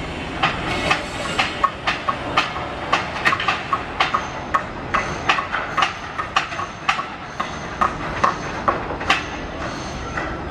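Construction-site noise: a run of sharp, irregular knocks, about two a second, over a steady background noise. The knocks stop about nine seconds in.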